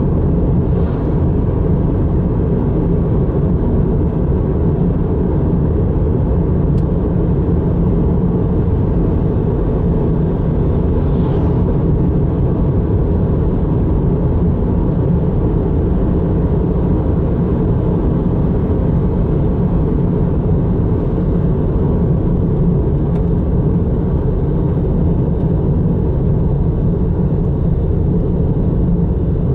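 Steady low road and engine rumble of a car driving along a road, with no break or change.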